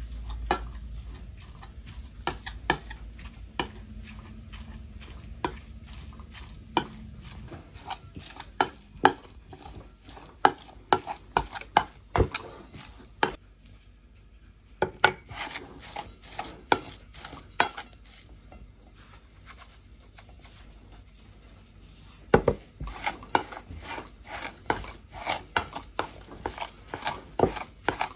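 A metal spoon stirring and mashing crumbly cottage cheese in an enamel bowl, with frequent irregular clinks and taps of the spoon against the bowl, which go quieter for a few seconds twice.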